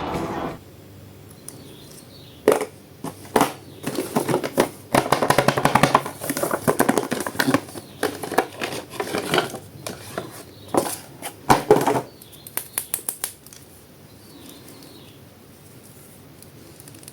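Plastic toy packaging being handled and opened: crinkling and sharp clicks in irregular bursts, busiest about five and nine seconds in, then quieting about thirteen seconds in.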